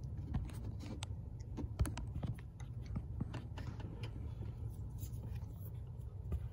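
Scattered small clicks and taps of hands handling the phone and parts in an engine bay, the sharpest a little under two seconds in, over a low steady rumble.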